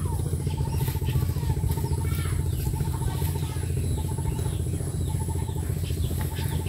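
A small engine running steadily with a fast low throb, unchanging throughout. Short runs of rapid high chirping repeat over it every second or so.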